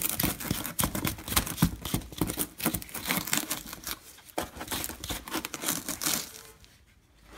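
Steel wire brush scrubbed rapidly back and forth over a rusty, dirt-caked brake caliper, a fast run of harsh scratchy strokes on metal that stops about a second before the end.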